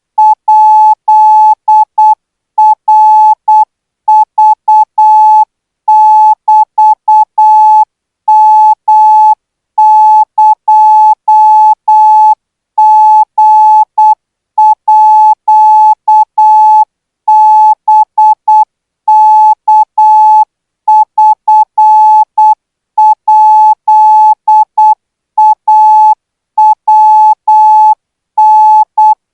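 Morse code practice signal: a single steady beep tone keyed on and off in dots and dashes with short gaps between letters, sent at a training speed of 12 words per minute for Thai radio signalling practice.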